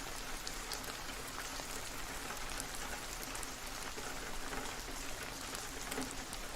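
A steady, even hiss dotted with many small scattered ticks, like rainfall.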